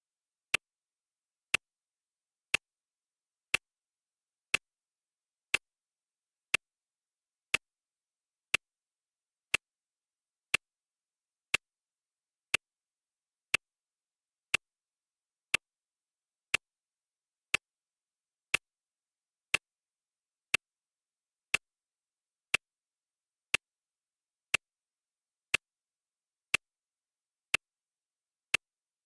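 Clock ticking sound effect: a sharp tick once a second, evenly spaced and unchanging.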